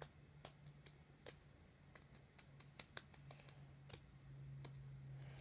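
Fluffy slime made with shaving cream being squeezed and kneaded in the hands, giving faint, scattered sticky clicks and pops, over a low steady hum.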